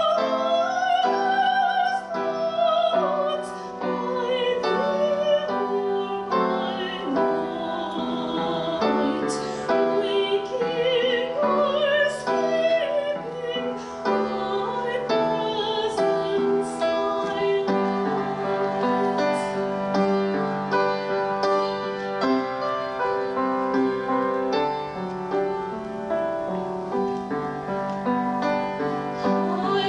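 Classical solo singing with vibrato, in an operatic style, over piano accompaniment.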